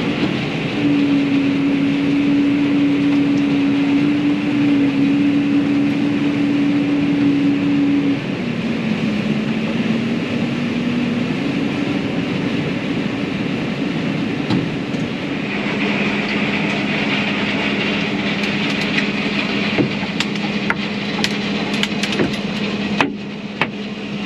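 Farm tractor engine running steadily while pulling a grain cart, its pitch dropping a little about a third of the way in and again past the middle. Light clicks and rattles come in near the end.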